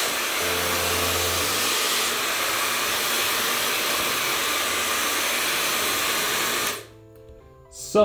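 Laifen Swift hair dryer, a high-speed brushless-motor dryer, blowing steadily with an even rushing hiss. It is switched off about a second before the end and cuts out abruptly.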